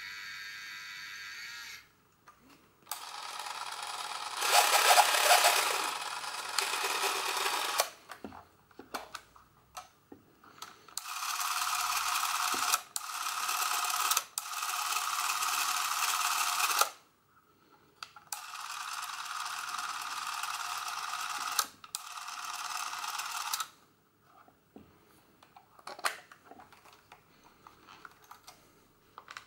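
Canon 814XL Electronic Super 8 camera's motor-driven mechanism running in three steady runs of several seconds each, the first the loudest. A few short clicks from the camera's controls and handling follow near the end.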